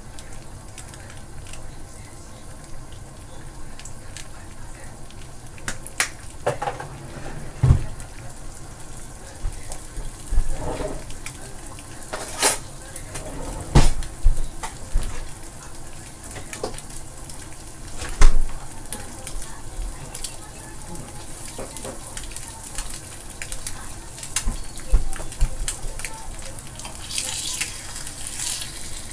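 Two eggs frying in a nonstick pan, a steady light sizzle with sharp clicks and knocks every few seconds. Near the end a metal turner scrapes under the eggs.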